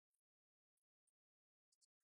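Near silence, with a few faint, brief ticks.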